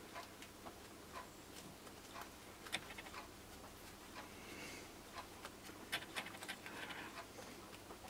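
Faint, irregular clicks and rustles of hands handling electrical wires and black plastic cable sleeving, with a few sharper ticks about three seconds in and around six seconds in.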